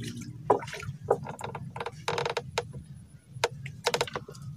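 Irregular sharp wooden clicks and creaks, with a quick run of clicks about two seconds in and another cluster near the end, from the bamboo fishing platform as a fish is fought on a fixed-line pole.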